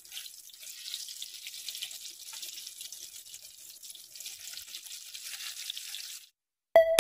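Breadcrumb-coated eggplant frying in shallow hot oil: a steady, crackling sizzle that stops abruptly about six seconds in. Loud electronic music starts just before the end.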